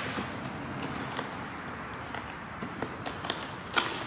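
Cardboard box being opened by hand: small scrapes, taps and crinkles of cardboard, then a brief louder scrape near the end as the cardboard is pulled open.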